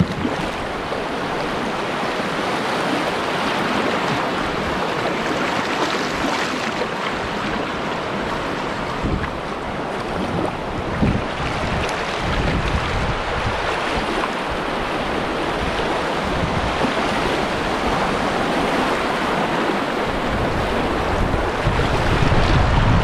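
Rushing water of a shallow river riffle around a kayak, with the splashes of double-bladed paddle strokes. Wind buffets the microphone in irregular low rumbles.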